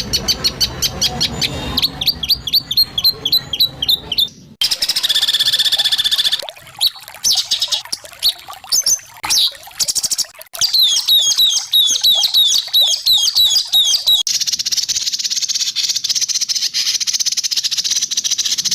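Songbird song made of fast runs of sharp repeated chirps and whistles in several passages that cut abruptly from one to the next, ending in a long, high, buzzy trill. These are the harsh rapid-fire phrases (tembakan) used to train white-rumped shamas.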